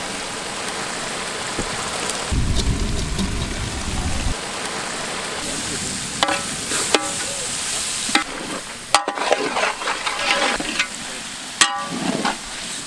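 Masala gravy frying and sizzling in a large cooking pot as fried prawns go in and are stirred with a big ladle. In the second half the ladle knocks and scrapes against the pot several times.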